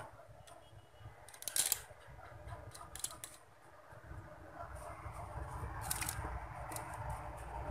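Sharp clicks and light knocks of hands handling a stand fan's bare motor, its plastic fittings and wires, a few seconds apart, over a low background rumble that grows louder in the second half.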